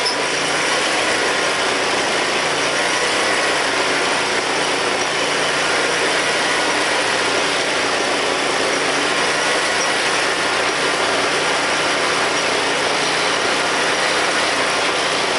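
Predator 670 V-twin engine on an Exmark riding mower running steadily with the mower under way.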